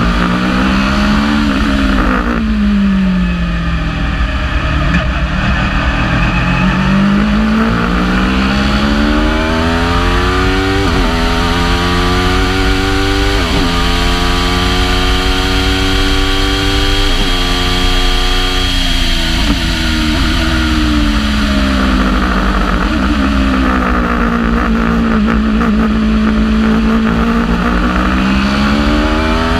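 Aprilia RSV4 V4 motorcycle engine in a Wolf Racing Thunder GB08 prototype race car, heard onboard as it is driven hard. The revs fall as the car slows for a corner near the start, then climb with three quick upshifts through the middle. They drop back under braking, hold low for a few seconds and rise again near the end.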